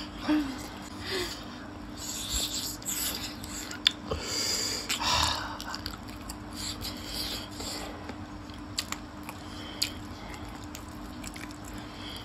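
Chewing and biting on gravy-coated chicken feet: irregular wet mouth noises broken by a few sharp little clicks.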